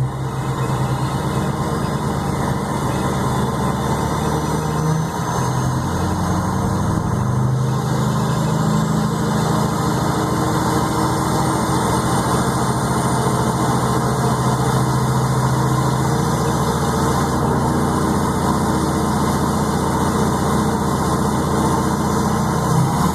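LBZ Duramax 6.6-litre turbodiesel V8 running steadily at low revs, with a faint high turbo whistle over the engine that slowly rises in pitch.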